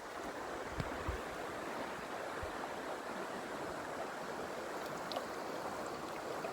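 Mountain river water rushing steadily, with a few faint clicks.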